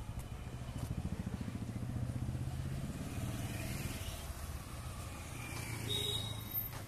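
Motorcycle and scooter engines running as they pass along a street, a steady low pulsing hum that is strongest a second or two in. A short high-pitched tone sounds about six seconds in.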